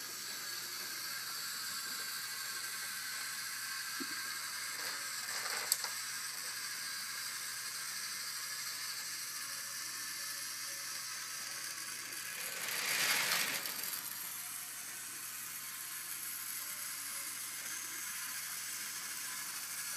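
Battery-powered toy train's small geared motor whirring steadily as it runs along plastic and wooden track. There is a single sharp click about a third of the way in, and the whirring swells louder for about a second two-thirds of the way through.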